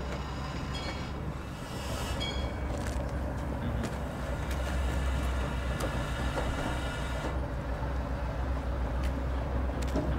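Dead, partly stripped BR Standard 4MT tank engine being moved along yard track by a locomotive with a diesel engine running steadily. High wheel squeals come about a second in, and sharp clicks and knocks from the wheels on the track follow.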